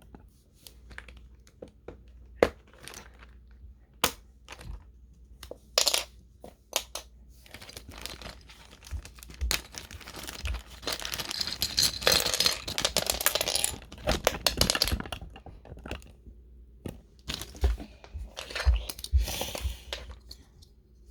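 Keycaps being pulled off a mechanical keyboard and set down: scattered sharp plastic clicks and clacks, with two longer stretches of plastic packaging crinkling.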